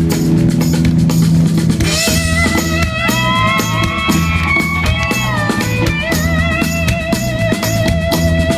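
Live rock band playing an instrumental passage on drum kit and bass with a steady beat. About two seconds in, a lead line of long, bending, wavering notes comes in over it.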